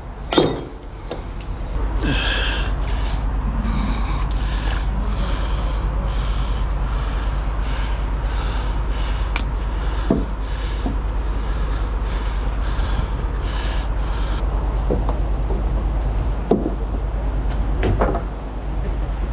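Heavy diesel truck engine idling steadily, with a sharp knock like a door shutting about half a second in and a few lighter knocks later.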